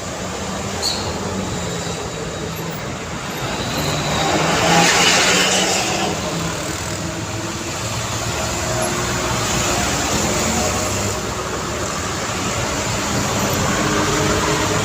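Busy road traffic: a steady mix of engines and tyre noise from vehicles passing, with one vehicle passing close and louder about five seconds in.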